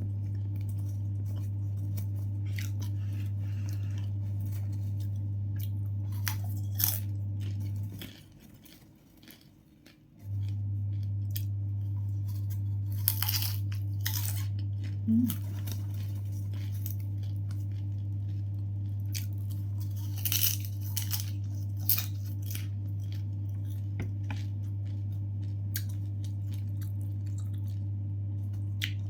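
Person eating snacks: scattered crunching and chewing with a few sharp clicks, over a steady low hum that cuts out for about two seconds near the end of the first third.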